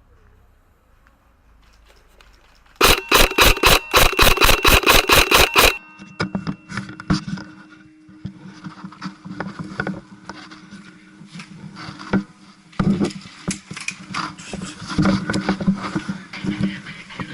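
A rapid, even string of airsoft gun shots, about five a second for some three seconds, followed by scattered, quieter clicks and knocks.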